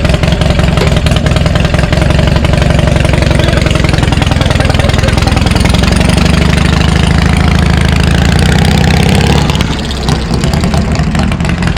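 Loud motorcycle engine running up close. Its revs dip and climb again midway, and it eases off near the end.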